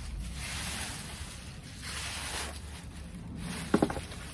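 Dry fallen leaves rustling in swells as they are gathered up by hand, with a brief knocking clatter near the end.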